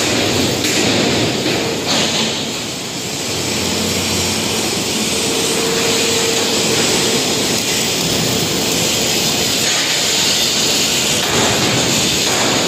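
Steady, loud workshop machinery noise from a steel fabrication floor, with a brief steady tone about five seconds in.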